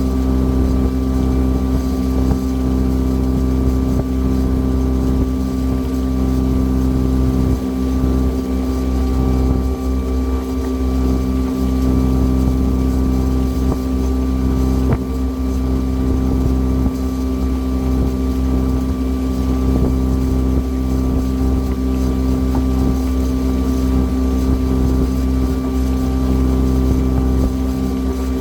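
Lake cruise boat's engine running steadily under way, an even drone with constant tones that hold the same pitch throughout.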